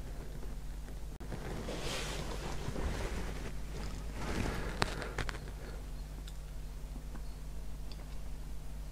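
Quiet handling noise as a small hand-held paint pot is turned: two soft rustling swells and a few light clicks about halfway through, over a steady low electrical hum.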